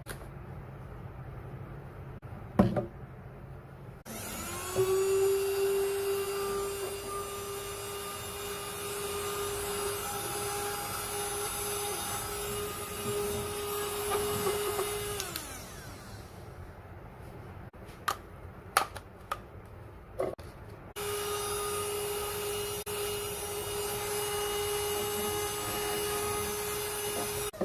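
Portable mini handheld vacuum cleaner switched on, its small motor spinning up to a steady whine, then switched off and winding down with a falling pitch. A few sharp clicks follow, and the vacuum is switched on again and runs steadily.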